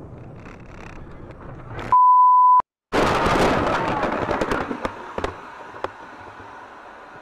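Dashcam road noise, then a loud steady one-pitch bleep tone about two seconds in, lasting under a second. After a moment's silence comes a sudden loud vehicle crash with clattering and scraping, dying away over about two seconds, with two sharp knocks after it.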